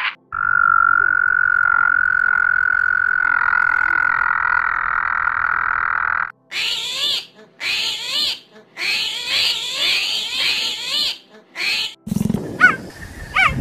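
Frog calling: a long, steady trill for about six seconds, then a run of quick, repeated chirping notes. Near the end a short low thump comes with a few brief high chirps.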